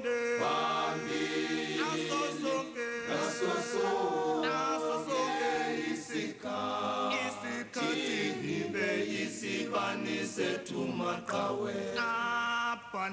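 A cappella choir singing a Zulu-language liberation song, several voices in harmony with long held notes. It is a struggle song honouring fallen fighters.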